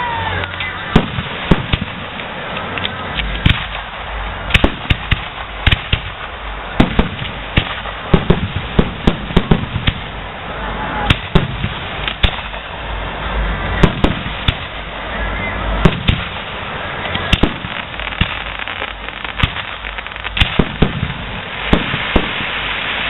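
Zambelli professional fireworks display: aerial shells bursting in loud, sharp bangs at irregular spacing, some in quick runs of several bangs together, over a steady background of crowd noise.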